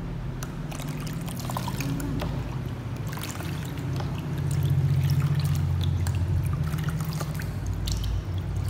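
Water poured from a plastic cup over a kitten standing in a plastic basin, trickling and splashing back into the water, with a low steady hum underneath that grows louder for a few seconds in the middle.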